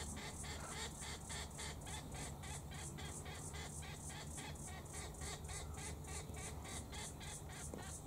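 Cicadas singing in a steady, high-pitched pulsing chorus, about five pulses a second, over a low steady hum.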